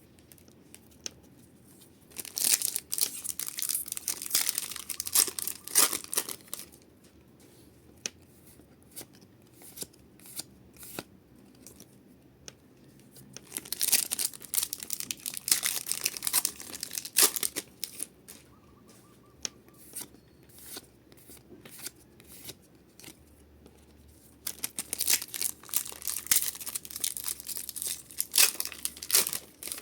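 Foil Pokémon TCG booster pack wrappers being torn open and crinkled, three times in a row, each a few seconds of crackling, with light clicks and ticks of card handling in between.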